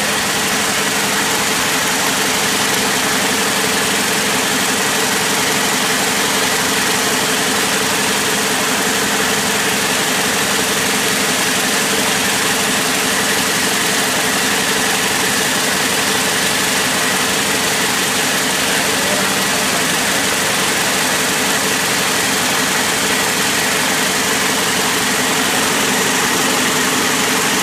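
High-speed braiding machines for shoelace and rope running steadily: an even mechanical din with a steady whine, with no starts or stops.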